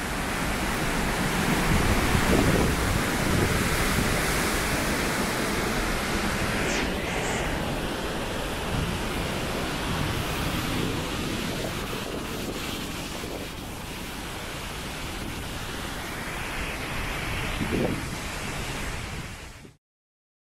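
Strong storm wind blowing hard across the microphone: a dense, steady rushing noise that swells and eases a little, then cuts off suddenly near the end.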